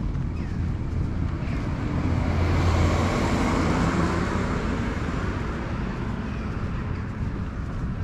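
A car driving past on the road, its tyre and engine noise swelling to a peak about three seconds in and then fading, over a steady low rumble of traffic.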